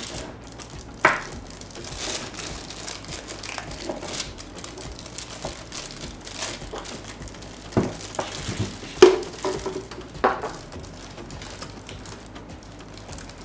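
Clear plastic bag crinkling and rustling as the karaoke player is pulled out of it, with a few sharp knocks as the unit and its power cord are handled.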